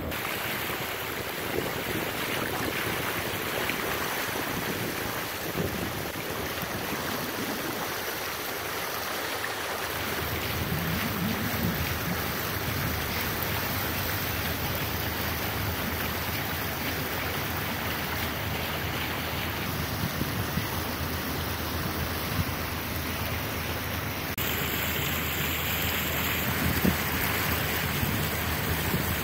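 Steady rush of water as a moving boat's bow pushes through the river, picked up by a phone at the bow, with some wind on the microphone.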